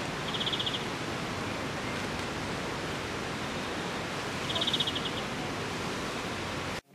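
Steady outdoor background hiss, with two short, high, rapidly pulsing trills about four seconds apart; the sound cuts off abruptly near the end.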